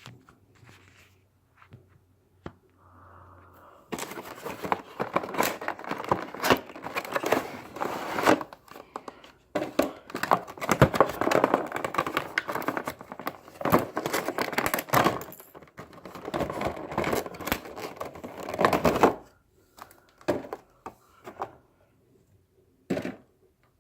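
Packaging being crinkled and torn open by hand to unwrap a diecast model plane, in uneven bursts of rustling and crackling that start about four seconds in and die down near the end, with a few faint rustles after.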